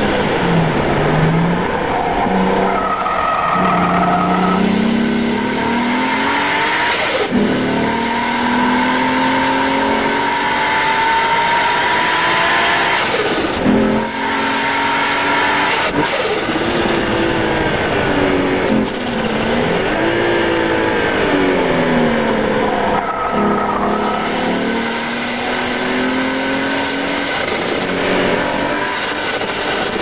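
Nissan R32 Skyline's turbocharged RB20DET straight-six driven hard on track. The engine note climbs and falls, with sharp breaks at the gear changes.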